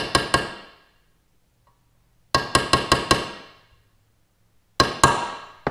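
A ball-peen hammer tapping a steel punch to bend down the metal retaining tab over a spark plug tube seal in an aluminium valve cover. The light, ringing metallic taps come in quick runs of about six a second, with pauses between: one run ending just after the start, another about two seconds in, and a few last taps near the end.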